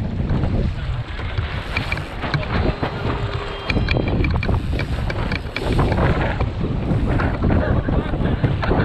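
Wind buffeting the microphone over water rushing along the hull of a National 18 sailing dinghy under way, with scattered clicks and knocks.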